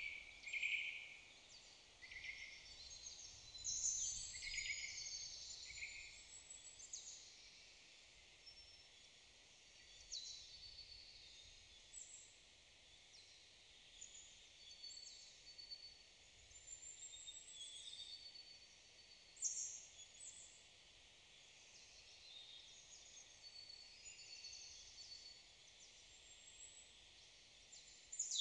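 Songbirds faintly chirping and singing, with short calls and trills every second or two. A louder burst of song comes about four seconds in and another near twenty seconds in.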